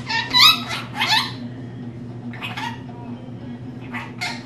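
Pet rainbow lorikeet giving short, high-pitched calls whose pitch bends: two close together at the start, another about a second in, one in the middle and one near the end.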